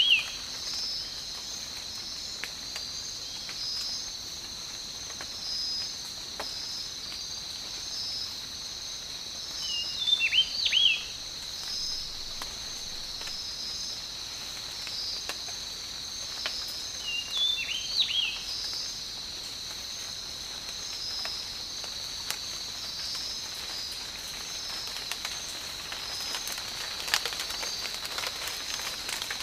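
Tropical forest ambience: a steady high insect chorus with a pulsing trill, and a bird calling a short phrase of quick up-and-down notes three times, about eight seconds apart. Near the end scattered raindrops begin to patter.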